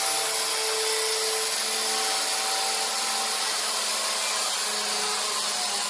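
Angle grinder cutting through the rusty sheet steel of a truck cab: a steady, hissing grind with a faint whine under it, never letting up.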